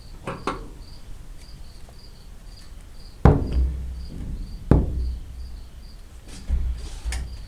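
Crickets chirping steadily, about two chirps a second, with a few sharp knocks from work on the car; the loudest knock comes about three seconds in and another a second and a half later.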